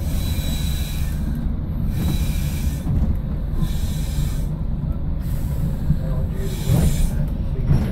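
Class 115 diesel multiple unit's engines running with a steady low rumble, heard inside the driving cab. A hiss comes and goes over it in about five bursts of a second or so.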